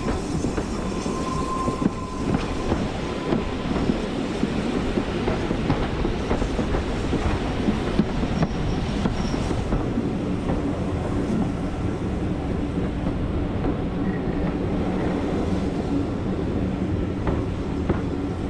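Heritage railway carriage running along the line, heard from inside: a steady rumble of wheels on rail with repeated clickety-clack clicks over the rail joints.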